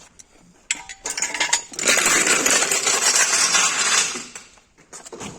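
Metal tools clinking a few times, then a loud harsh rasping noise for about two seconds that fades out, with a short burst near the end.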